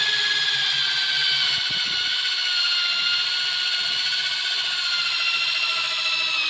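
Corded handheld electric drill boring a bolt hole into a wooden frame member, its motor running with a steady whine under load that dips slightly in pitch partway through.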